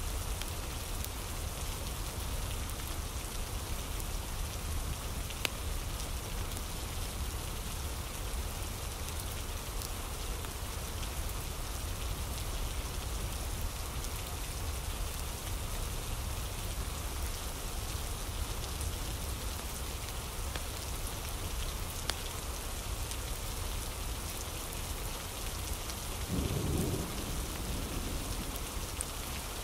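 Steady rain ambience, an even hiss with a constant low rumble beneath it, and a brief low swell near the end.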